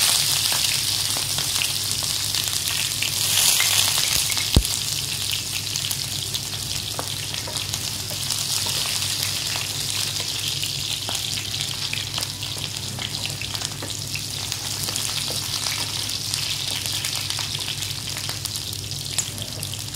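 Whole shallots sizzling in hot oil in a nonstick pan, a steady frying hiss that is loudest in the first few seconds after they go in. One sharp click about four and a half seconds in. They are fried only briefly, just to soften.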